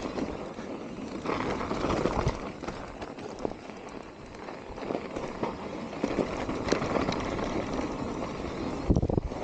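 Mountain bike rolling downhill over an icy, snow-covered trail: steady tyre noise on the ice and snow, with scattered knocks and rattles from the bike over bumps and a few heavier low thuds near the end.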